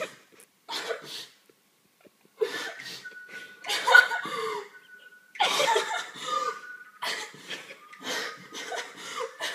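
A young woman sobbing, in about six separate bursts of gasping, choked crying breaths.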